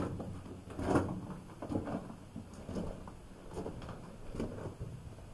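Footsteps scuffing and knocking over loose stones on a rock floor, about one step a second.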